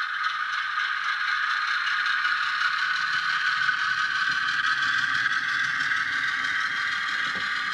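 Model Class 08 diesel shunter fitted with a Howes DCC sound chip, running slowly: the chip's diesel engine sound, steady and thin with almost no bass from the model's small speaker, mixed with a fine mechanical clatter from the model's drive.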